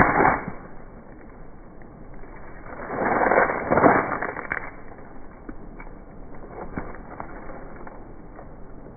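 Sledgehammer blows on objects in a bag: a sharp, loud hit at the start, then a longer noisy stretch of about a second and a half, beginning about three seconds in, with the loudest point near four seconds.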